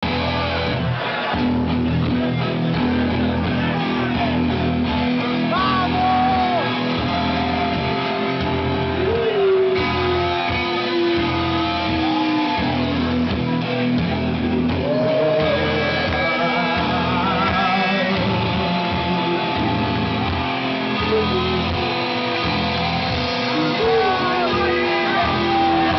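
Live rock band playing: electric guitars and drums, with a voice singing over them.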